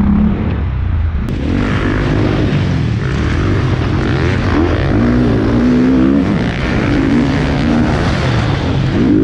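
Motocross bike engine revving hard, its pitch climbing and dropping again and again as the throttle opens and closes, heard close up from a camera mounted on the bike.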